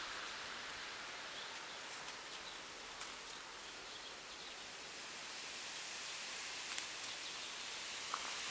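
Steady outdoor background hiss, with a few faint ticks about three seconds in and near the end.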